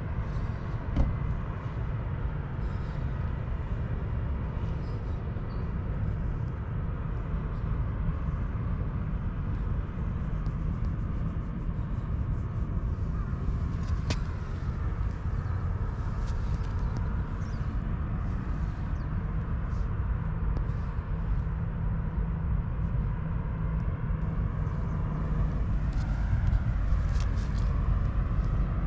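Steady low outdoor rumble, with faint scattered ticks and a single sharp click about halfway through.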